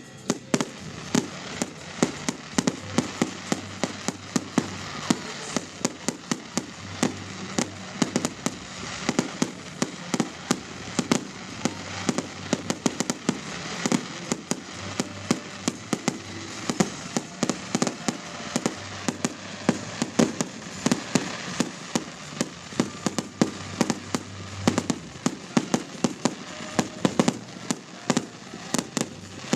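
Fireworks display: a rapid, unbroken string of sharp bangs and cracks from bursting fireworks, two or three a second.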